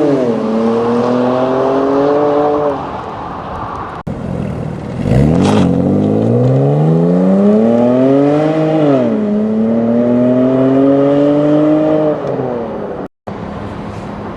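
BMW E90 3 Series inline-six running through an Eisenmann aftermarket exhaust with midpipe, accelerating hard through the gears: the engine note climbs, drops at an upshift right at the start, climbs again and drops at another upshift about nine seconds in. The note breaks off briefly twice, about four and thirteen seconds in.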